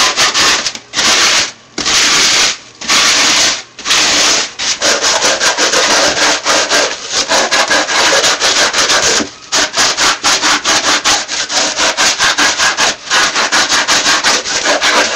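Styrofoam being sanded by hand with Norton 60-grit sandpaper gloves: a continuous run of quick, scratchy rubbing strokes that sounds horrible. There are short breaks about every second near the start and one more about nine seconds in.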